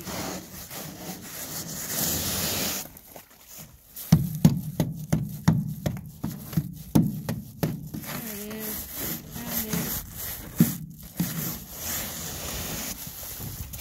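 Channel-lock pliers chipping and scraping freezing-spray ice and packed snow off an aluminum boat's deck. A few seconds of steady scraping, then a run of irregular knocks and scrapes as the ice is struck and pried loose.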